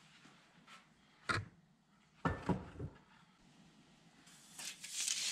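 A wooden board being handled on a workbench: a few dull knocks as it is set down, then a longer rubbing scrape near the end as it slides across the bench.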